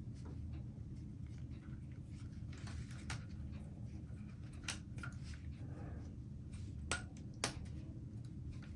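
Hands working on a small 1/18-scale plastic RC rock crawler while fitting rubber bands: soft rustling and handling with a few sharp small clicks, the loudest two close together near the end, over a steady low hum.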